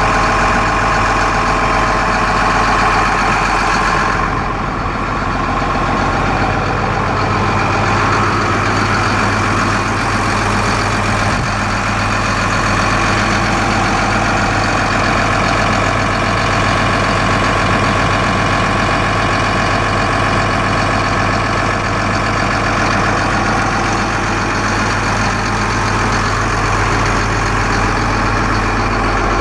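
Isuzu six-cylinder turbo diesel engine of a Case CX330 excavator idling steadily, heard from close beside the machine.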